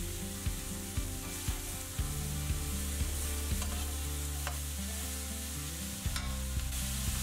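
Vegetables sizzling in hot oil in a stainless-steel wok while a metal spatula stirs them, with short scraping ticks of the spatula against the pan.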